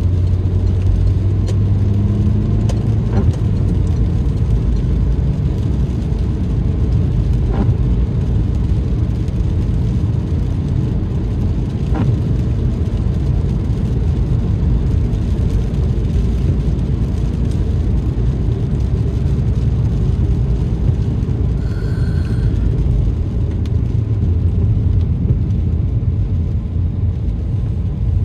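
Car driving on the road: a steady low rumble of engine and tyres, with a few faint clicks and a short high tone near the end.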